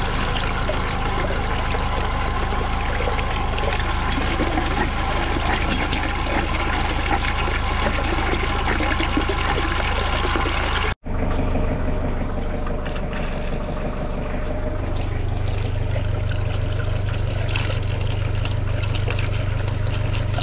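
Water pouring out of a rainwater downpipe and splashing into a drainage gully, first onto its metal grate, then straight into the open gully: a flow test of the rainwater drains. About halfway through, the sound cuts out for an instant, and afterwards the water sounds duller.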